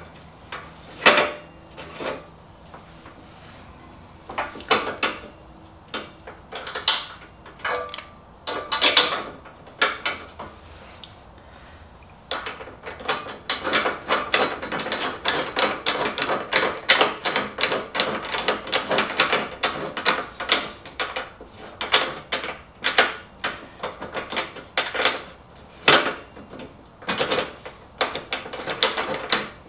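Hand ratchet wrench clicking rapidly for a long stretch as a bolt is run in on a motorcycle part, after a spell of scattered knocks and clinks of metal parts being fitted.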